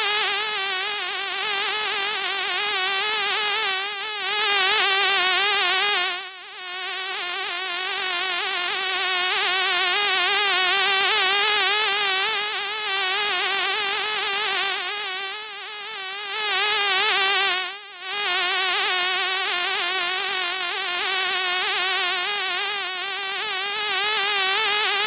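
A fly buzzing in flight: one continuous, wavering hum that swells and fades as it moves about, dropping away briefly about six seconds in and again near eighteen seconds.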